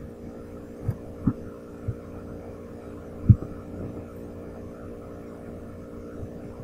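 Steady electrical hum with a few short, low thumps and a click scattered through it. The loudest thump comes about three seconds in.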